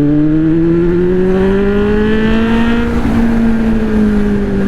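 Kawasaki Z-series inline-four motorcycle engine pulling under throttle, its pitch rising steadily for about three seconds, then easing off and falling slightly as the throttle is rolled back.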